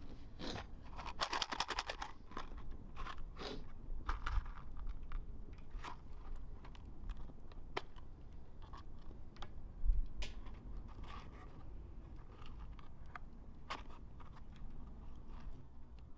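A cardboard matchbox being handled and its drawer slid open. The matches rattle in a quick run about a second in, followed by scattered single clicks and scrapes.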